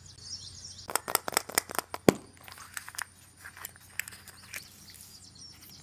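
A toy surprise egg being opened by hand: a quick cluster of sharp crinkles and clicks from its wrapper and plastic shell about a second in, the loudest near two seconds, then a few scattered clicks.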